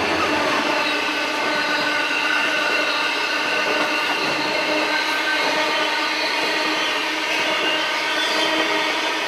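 Coal hopper wagons of a freight train rolling past at close range: a steady rumble and rattle of wheels on rails with faint steady ringing tones.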